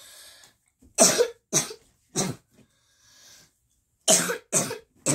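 A boy coughing in two fits of three coughs each, the first about a second in and the second about four seconds in, with a breath drawn in between. He has a cold.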